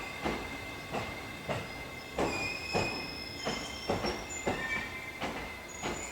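JR Sobu Line electric train passing over a level crossing, its wheels knocking unevenly over the rail joints. Thin high wheel squeals join in about two seconds in.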